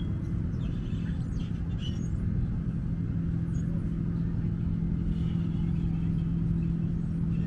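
A steady low engine hum with an even pitch, over a low rumble.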